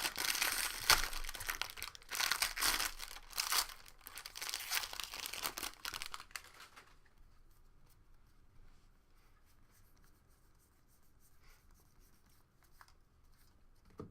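Foil wrapper of a jumbo trading-card pack being torn open and crinkled for about seven seconds, then only faint rustling and light ticks as the cards are handled.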